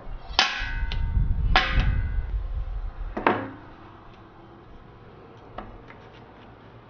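Square steel tubing set down and shifted on a wooden board: three ringing metal clanks over about three seconds. Near the end come a few light clicks from a one-handed bar clamp being tightened.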